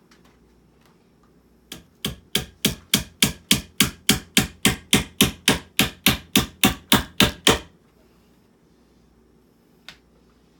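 A hammer driving a nail into wood framing: about twenty quick, even strikes at roughly three and a half a second, stopping suddenly, with a single knock before and another near the end.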